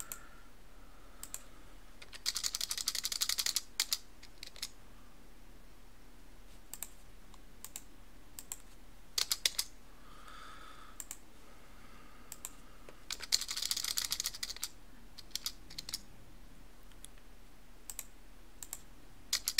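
Computer keyboard typing in two quick runs of keystrokes, one about two to three and a half seconds in and another around thirteen to fourteen and a half seconds, with scattered single clicks in between, as numeric values are typed in.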